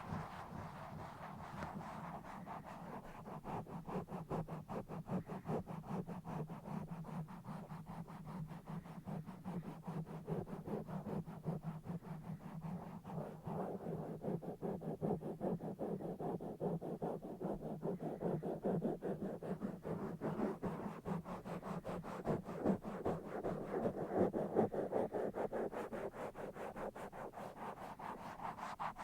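Fast, rough scratching and rubbing directly on a microphone: a dense run of quick strokes throughout, louder toward the end.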